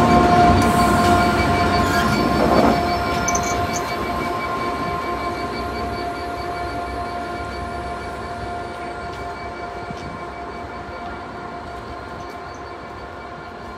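Class 66 diesel locomotive with its two-stroke EMD V12 engine, at the rear of a passenger train, passing and moving away: a steady engine drone and whine that fades gradually as it recedes, with a brief knock about two and a half seconds in.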